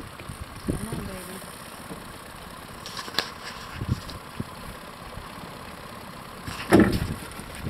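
Fishing boat's motor idling steadily, with a few knocks and a louder sudden sound near the end.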